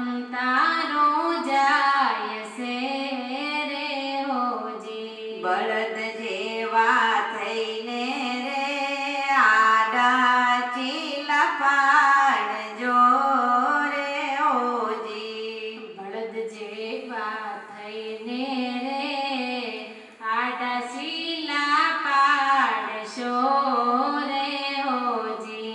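Women singing a Gujarati devotional bhajan into handheld microphones, the lead voice passing between two singers.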